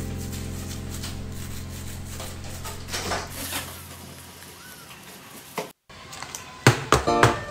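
A held chord of background music fades away over the first few seconds. Then comes faint crinkling of a plastic food-handling glove against parchment paper as a hand presses batter in a loaf pan. After a sudden drop to silence, new music with quick plucked notes starts near the end.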